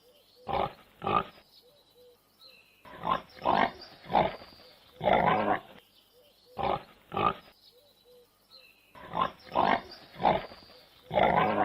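Domestic pig grunting: short grunts in groups of two or three, each group followed by a longer grunt, repeating.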